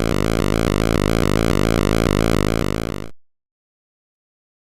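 Background synthesizer music with a steady repeating pattern, fading out about three seconds in, then complete silence.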